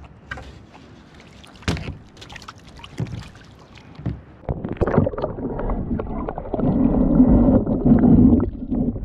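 Light knocks and water splashes against a sit-on-top kayak as a wire keep net is handled over the side, then, from about halfway on, a louder, muffled rumbling and gurgling of water heard from below the surface.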